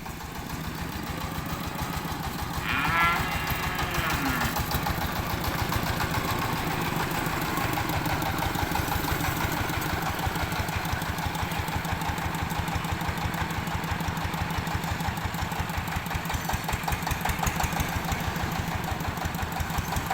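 Engine running steadily at a fast, even beat, the power unit of a homemade rice milling machine. About three seconds in there is one short call that rises and then falls in pitch.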